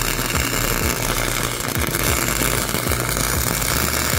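Harbor Freight Flux 125 flux-core wire-feed welder arc crackling and spitting steadily as a nut is welded onto a broken exhaust stud in an LS cylinder head, the heat and weld meant to let the stud be wrenched out.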